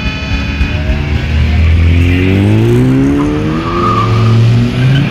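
An Opel car's engine revving hard as it pulls away, its pitch climbing steadily for about three seconds and staying high near the end. A steady high tone cuts off about a second in.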